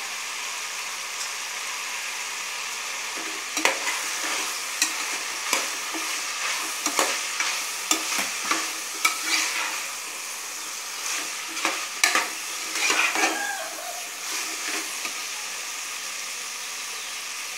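Vegetables sautéing in oil in an aluminium pressure cooker, sizzling steadily, while a ladle stirs and scrapes against the pot. Clinks and scrapes come in an uneven run from about three seconds in until about fifteen seconds in.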